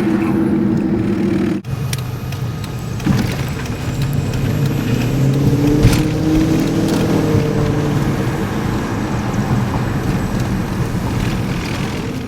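Car driving: steady engine and road noise, with an abrupt change in the sound about a second and a half in and a single click a little later.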